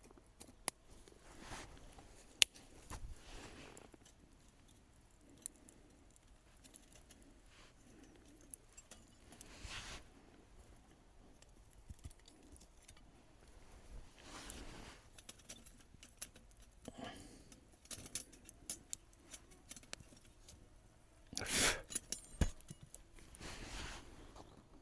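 Scattered light clicks, clinks and short rustles, with the loudest rustle and knock about 21 seconds in.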